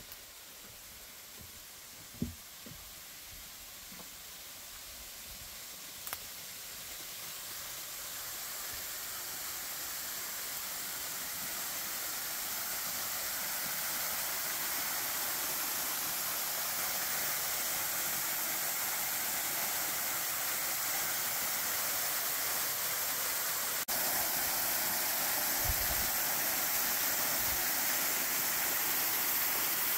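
Rushing water of a waterfall, an even hiss that grows steadily louder as it is approached, with a few sharp knocks in the first seconds and a low thump near the end.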